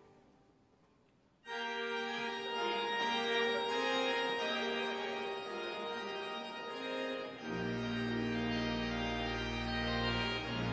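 Pipe organ: the last sound of the previous music dies away, then about a second and a half in the organ starts up with full, sustained chords, and deep pedal notes come in underneath about seven and a half seconds in.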